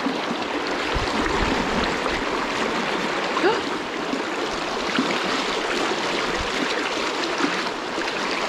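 Fast, shallow river rapids rushing steadily, the current churning and splashing close around someone wading in it.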